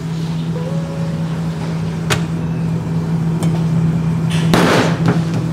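Steady low hum of commercial kitchen equipment, with a few light knocks and a short rustling burst near the end as naan dough is patted out by hand on a floured steel counter beside the tandoor.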